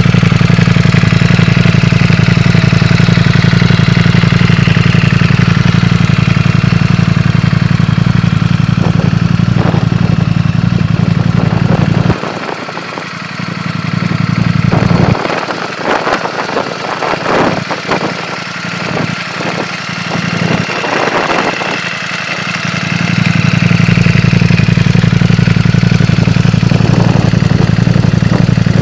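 Ducati Panigale V4's V4 engine running at a steady idle. For about ten seconds midway the deep idle note drops away, leaving a quieter, uneven clattering sound before the steady idle returns.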